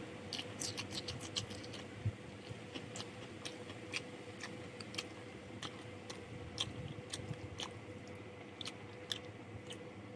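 Close-up eating sounds of someone eating rice with chicken curry and fried potatoes: chewing with irregular small clicks and smacks. A faint steady hum runs underneath.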